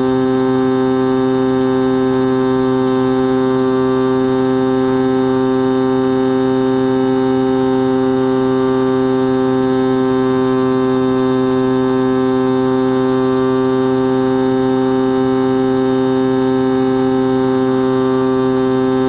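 X-8 FPV flying wing's motor and propeller running at steady cruise throttle, heard from the onboard camera: a constant, even-pitched drone with a light hiss of rushing air.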